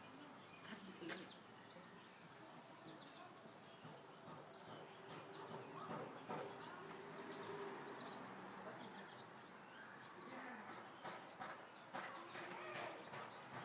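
Faint bird chirps over low background noise, with a few light clicks.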